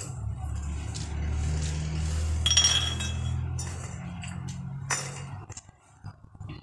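Raw groundnuts being hand-sorted: fingers rake through a plate of nuts, and picked nuts drop into an empty ceramic plate with light clinks. The two loudest clinks come about two and a half seconds and five seconds in, with a low hum underneath.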